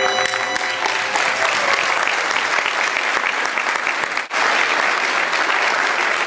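Audience applauding, as the last notes of music fade away in the first second. The clapping breaks off briefly a little past four seconds in and is cut off suddenly at the end.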